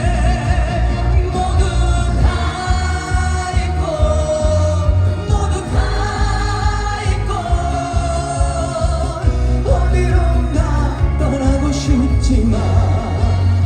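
Trot song performed live: a male singer's voice, with wavering vibrato on held notes, over a backing track with a heavy bass beat.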